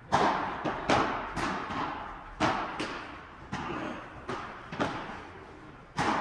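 Padel rally: the ball struck back and forth with padel rackets and bouncing. It comes as a string of sharp knocks about every half second to a second, each trailing off in an echo.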